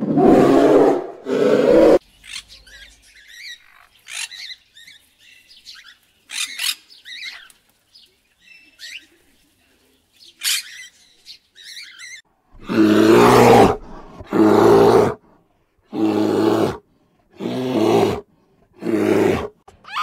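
A polar bear's deep, loud growling roar in the first two seconds. Then faint, high bird chirps for several seconds, followed by a run of loud, harsh animal calls about a second apart.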